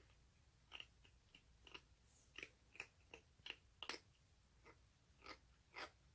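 Baby cheese-tabby kitten chewing food, a dozen or so short, crisp crunches at an uneven pace, faint.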